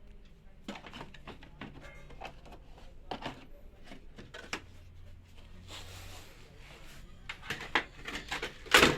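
Scattered clicks and knocks as the LED TV and tools are handled to open its back, with a short hiss around the middle and one loud knock near the end.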